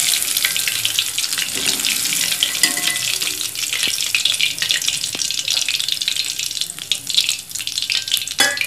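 Hot oil in a steel kadai sizzling and crackling steadily as well-fried prawn 65 pieces are lifted out in a wire strainer to drain, with a few light clicks.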